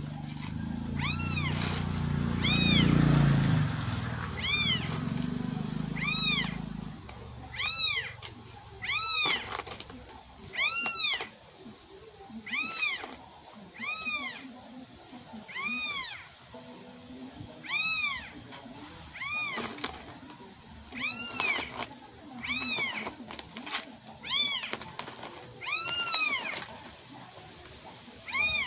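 High-pitched kitten mews repeated about once a second, each rising then falling in pitch: a recording of kittens played from inside a bag. A low rumble runs under the first several seconds and is loudest about three seconds in.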